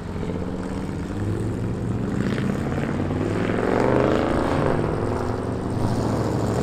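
A pickup truck's engine pulling away under throttle. Its pitch climbs and then drops back about four and a half seconds in.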